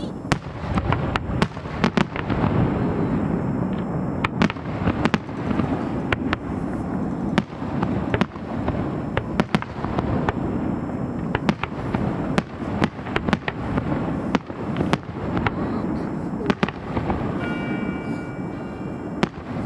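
Fireworks display: aerial shells bursting in a continuous low rumble, with many sharp bangs at irregular intervals.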